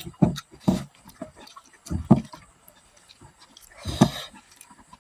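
Close-miked chewing and mouth smacks of a person eating, in a few loud irregular bursts with short pauses between.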